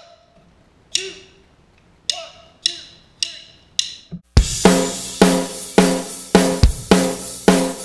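Drumsticks clicked together in a count-in, two slow clicks then four quicker ones. About four seconds in, the drum kit and a country band come in together, with hard kick and snare hits on each beat under bass and guitar.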